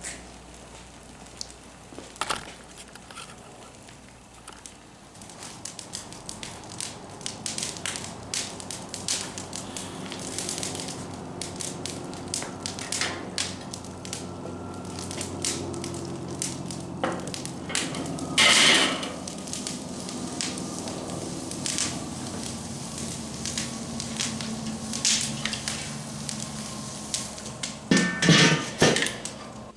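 Lump charcoal fire catching in a kettle grill after being lit with lighter fluid, crackling and popping irregularly, the pops growing denser as it burns. Near the end come several loud metal clanks as the grill's steel lid is handled and set on.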